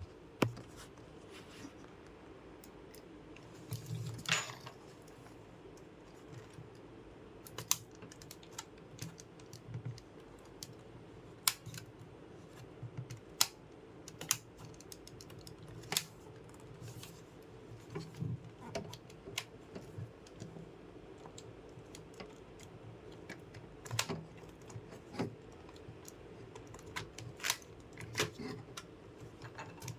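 Irregular small clicks and taps, with a few brief rustles, from hands handling computer hardware, about one click every second or two.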